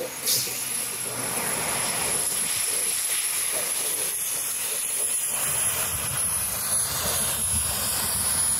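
LMS Stanier Black Five 4-6-0 steam locomotive 44871 passing close by under steam, with a steady roar of exhaust and train running that grows heavier and deeper about five seconds in as the engine comes alongside.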